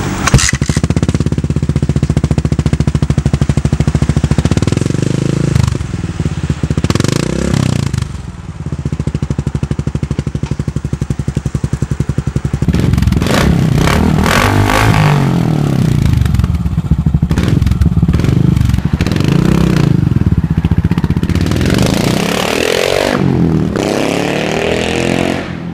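Yamaha SR400's air-cooled single-cylinder engine running at idle with even firing pulses, then revved up and down repeatedly through the second half.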